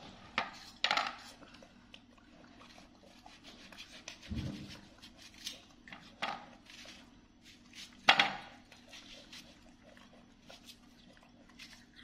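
Scattered clinks and clatters of watermelon pieces and a knife being handled on a plate and a woven tray, a few sharp knocks with the loudest about eight seconds in and a duller thud about four seconds in, over a faint steady hum.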